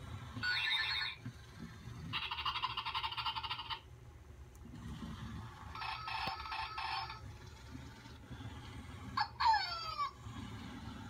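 Zhu Zhu Pets Siberian Husky puppy toy playing its electronic sound effects through a small, tinny speaker: three short bursts, then a quick falling whistle near the end, over a low rumble.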